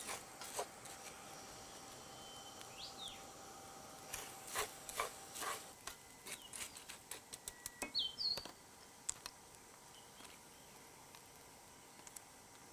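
A run of light clicks and taps, most of them between about four and nine seconds in, over faint outdoor ambience with a few short chirps.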